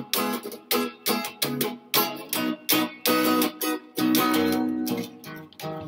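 Solo electric guitar strumming chords in a bossa nova rhythm: short, clipped strokes, about three or four a second, with a few chords let ring for longer around the middle.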